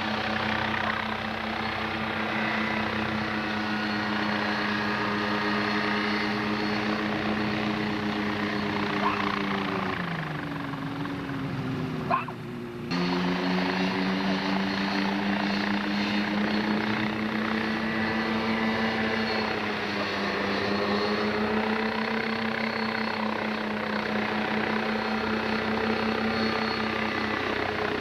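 Small homebuilt experimental helicopter's engine and rotor running steadily. About ten seconds in the engine note sags lower, there is a brief break with a click, and then it comes back at full speed; the pitch dips slightly again near twenty seconds.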